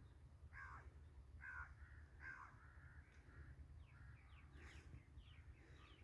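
Faint wild birds: three harsh, caw-like calls in a row in the first half, then a quick run of short, high chirps, over a low steady rumble.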